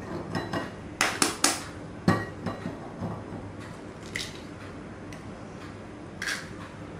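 Hen's eggs being tapped and cracked against the rim of a small glass bowl: sharp taps and clinks of shell on glass, a quick run of three about a second in, then single taps every second or two.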